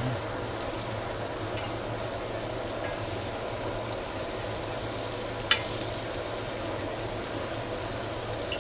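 Food frying in a pan, a steady sizzle over a low hum. A single sharp click about five and a half seconds in.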